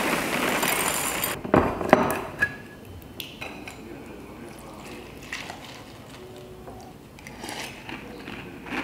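Dry Cheerios cereal poured from the box into a bowl, a rattling rush for about the first second and a half, then a few knocks. Vodka is then poured over the cereal, and a spoon clinks against the bowl near the end.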